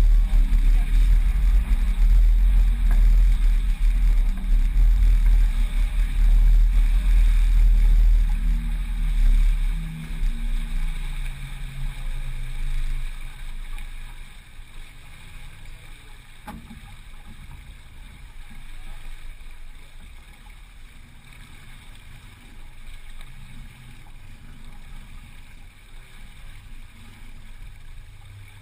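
Low rumble and hiss aboard a sailboat under way, loud for about the first ten seconds, then dropping to a quieter, steady hiss.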